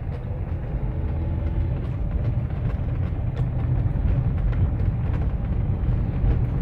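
Citroën C4 2.0 driving along a street, heard from inside the cabin: a steady low engine and road rumble. The engine runs without the tappet clatter (the 'sewing machine' noise), now that the oil passages in the cylinder head have been cleared.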